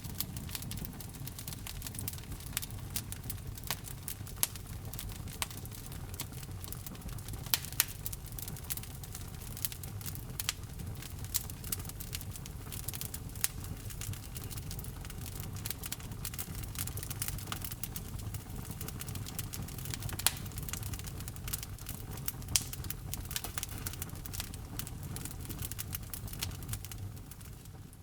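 Wood fire burning in a fireplace: a steady low rumble of flames with frequent sharp pops and snaps, fading away at the very end.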